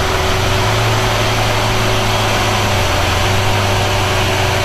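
Lamborghini Veneno's 6.5-litre V12 running steadily at low revs as the car rolls slowly, a loud even low drone with no revving.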